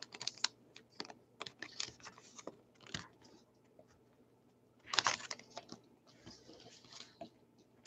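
Faint crinkling and tearing of a trading card pack's wrapper as it is peeled open, then the cards rustling and sliding against each other as they are handled, with a louder burst of rustling about five seconds in.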